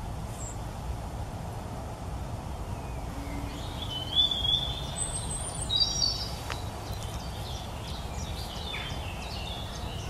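Bohemian waxwings calling: short, high-pitched trilled notes come in about four seconds in and repeat for several seconds. Under them runs a steady low background rumble.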